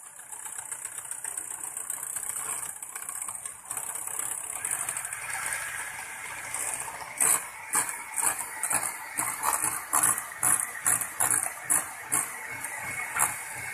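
Cake batter of eggs, sugar and oil being worked in a mixing bowl: a steady rushing sound for the first few seconds, then about a dozen sharp strokes, roughly two a second, through the second half.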